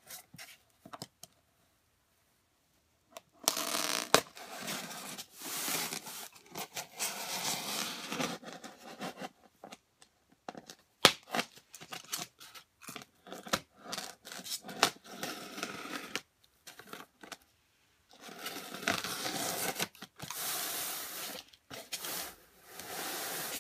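Utility-knife blade scraping and cutting along the seams of a styrofoam packing case, in long stretches of scratchy noise broken by short pauses and a few sharp clicks.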